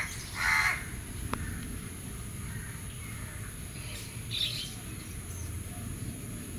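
A crow cawing once, harsh and short, right at the start, then a brief higher bird call about four seconds in.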